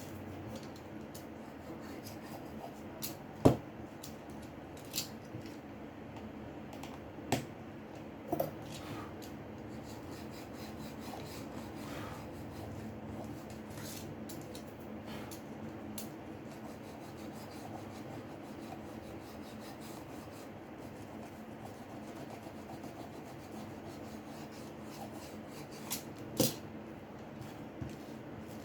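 Scattered small clicks and taps of tools handling a smartphone's parts during a repair, the loudest about three and a half seconds in and another near the end, over a steady low hum.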